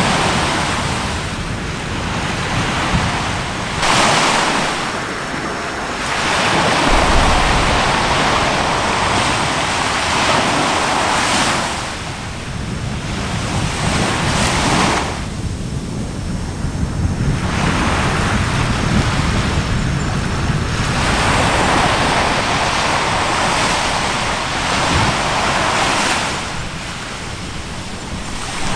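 Sea waves washing on a shore, the rush swelling and easing every few seconds, with wind buffeting the microphone.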